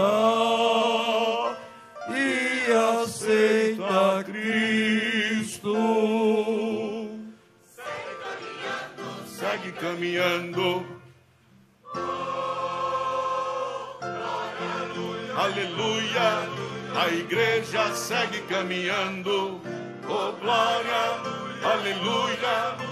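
A church choir and congregation singing a Portuguese gospel hymn over instrumental accompaniment, the voices held with vibrato. The music drops out briefly about halfway through, then many voices resume together.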